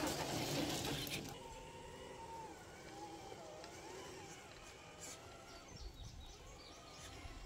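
Traxxas TRX-4 Bronco RC crawler driving over rock close by: its electric motor and drivetrain run under the noise of tyres on stone. About a second in the sound drops and turns fainter, becoming a thin wavering whine that rises and falls with the throttle as the truck crawls along a rock ledge.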